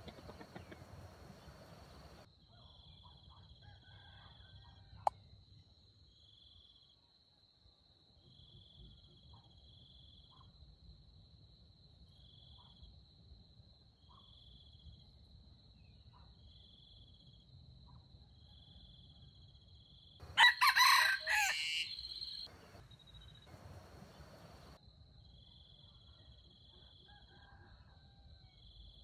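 Red junglefowl rooster crows once, loud and about two seconds long, about two-thirds of the way through. Under it, insects keep up a steady high drone with a short chirp repeating every second or two, and there is a single sharp click a few seconds in.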